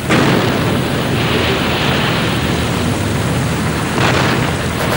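Steady, loud roar of aircraft engines and wind over a carrier flight deck: a dense rumble with a hiss, and no separate events. It swells slightly about four seconds in.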